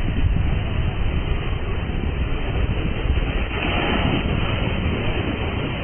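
Storm waves crashing over a rock barrier, with strong wind rumbling on the microphone; about three and a half seconds in, a burst of spray rushes in close.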